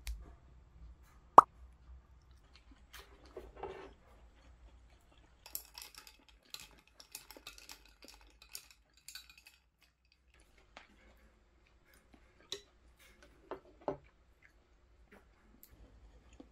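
Quiet tableware sounds of a meal: a sharp click about a second in, a dull knock, then a few seconds of fine crackling, and several more light clicks near the end.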